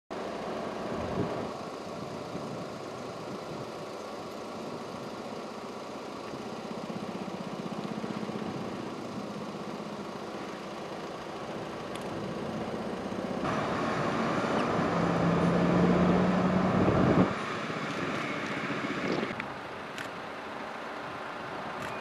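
Engine noise that swells over a few seconds and cuts off suddenly about three-quarters of the way through, with a shorter stretch of noise ending abruptly a couple of seconds later.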